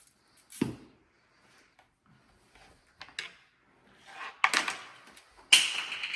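Food-preparation handling noises: a single knock about half a second in, a click, then rustling and crinkling in the last two seconds.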